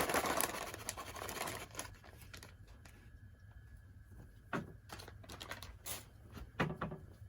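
Soaked yellow split peas being poured into a cotton pudding bag: a dense rustling patter for about the first two seconds, then a few scattered soft knocks and rustles.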